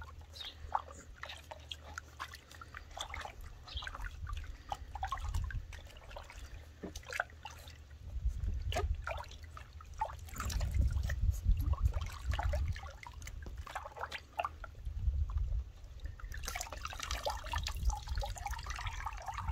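Bathwater splashing and dripping in a plastic tub as a puppy is washed by hand, with many small splashes and drips over a low rumble. Near the end, water pours and drips back into the tub as the wet puppy is lifted out.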